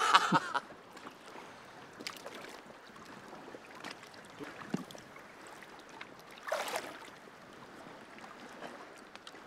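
Shallow lake water lapping and sloshing around a wading angler holding a large catfish in the water, with one short splash about six and a half seconds in.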